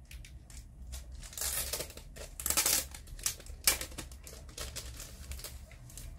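Clear cellophane wrapping on small photocard packs crinkling and rustling in irregular bursts as fingers peel it off, with small clicks and taps of the card packaging.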